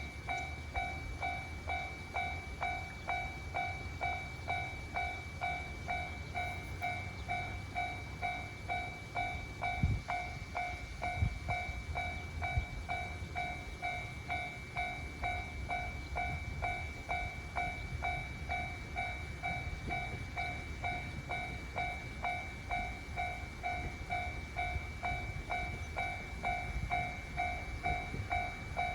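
Japanese railway level-crossing alarm ringing, a two-tone electronic ding repeating evenly without a break, over a low rumble, with a few thumps near the middle.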